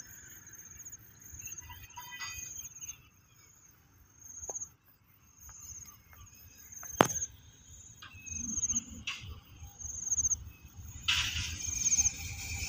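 Insects chirping, a short high call repeated about once a second, with one sharp click about seven seconds in. Near the end a hiss and low rumble swell as the distant Alsthom diesel-electric locomotive draws closer.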